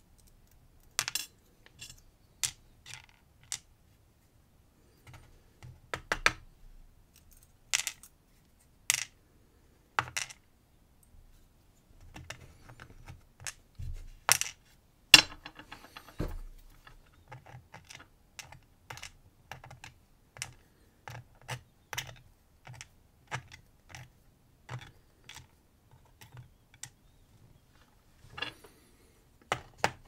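Irregular small clicks and taps of tiny brass lock pins and metal tools: pins being tipped out of a lock cylinder and set down on a plastic pinning tray, and a steel pick tapping against the brass shell.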